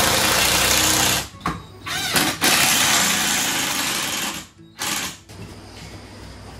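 Cordless impact driver hammering screws into a wooden frame, in runs of a second or two with short stops between them, the last one brief.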